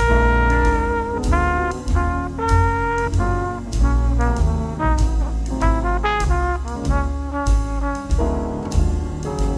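Background music: a jazzy tune with brass-like melody notes over a steady bass beat.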